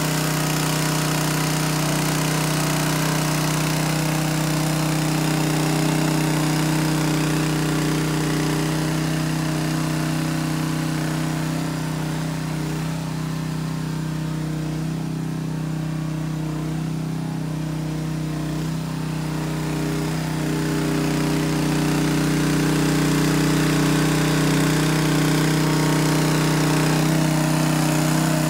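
2-inch trash pump's small engine running steadily while it pumps water out of a drained pool, a little quieter for a few seconds midway.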